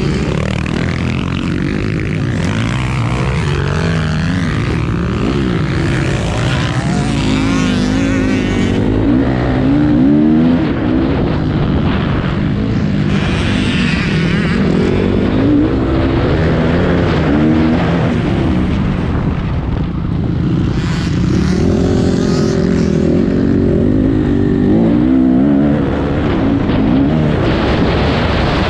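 Motocross motorcycle engines racing, revving up and down repeatedly as they accelerate and back off.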